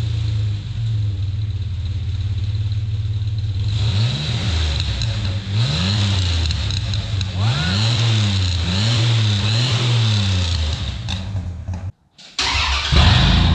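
Dodge Dakota V6 running through its stock exhaust with the muffler still on: idling evenly, then revved in a string of short throttle blips from about four seconds in. After a brief break near the end, the same engine idles louder and rougher, now straight-piped.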